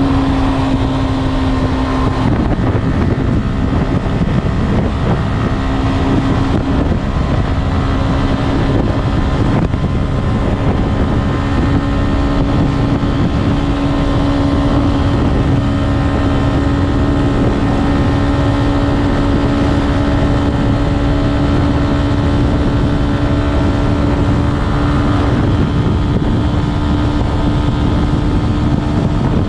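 Yamaha Y15ZR's 150 cc single-cylinder four-stroke engine, on its standard exhaust, running at a steady cruising speed. Its note dips slightly about two seconds in and then holds. Heavy wind buffeting on the microphone rumbles underneath.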